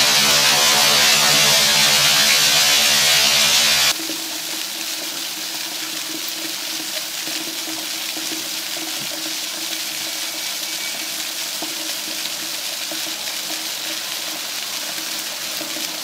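Steady hiss of rushing, splashing water, like fountain jets, taking over about four seconds in when loud music with sustained tones cuts off abruptly.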